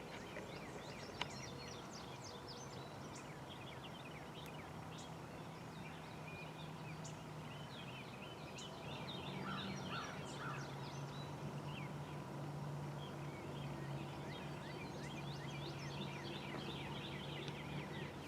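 Faint wild turkey gobble about ten seconds in, over steady songbird chirping.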